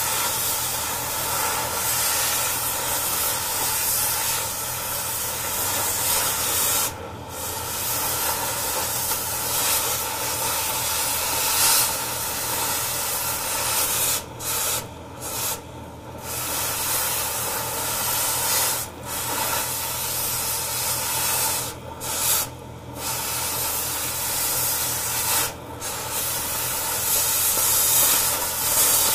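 Oxy-fuel cutting torch hissing steadily as it cuts away steel on an old hydraulic cylinder's rod end pin supports, the hiss briefly dropping out several times.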